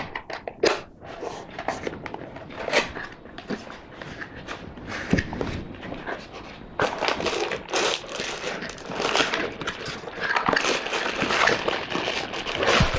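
Cardboard box and packaging being handled and opened by hand: continuous irregular rustling, scraping and crinkling as the hair dryer is taken out of its box.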